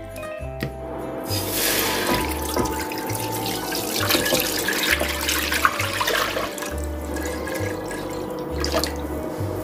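Rice-washing water poured in a steady stream into a large pot, splashing continuously. The pour starts about a second in and stops just before the end.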